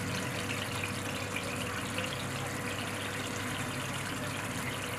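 Tomato and spice masala sizzling steadily in oil in a pan, cooked to the stage where the oil has separated from the masala.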